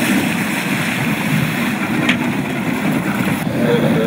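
Steady rushing noise of strong, gusty wind and choppy water splashing around racing sailing dinghies, heaviest in the low end, with a single short tick about two seconds in.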